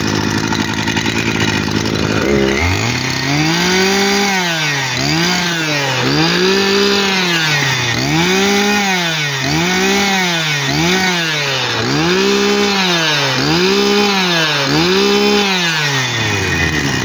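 Stihl FS 240 two-stroke brush cutter engine idling, then from about two and a half seconds in revved up and let back down again and again, about ten times, each rise and fall lasting a bit over a second, before settling back to idle near the end. It fires crisply, which the seller takes as a sign of very good compression.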